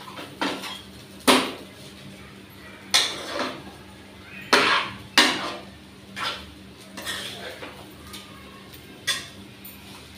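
Steel spatula scraping and knocking against a non-stick kadhai while stirring and tossing fried rice. It gives irregular sharp clacks every second or two over soft scraping, with a faint steady hum underneath.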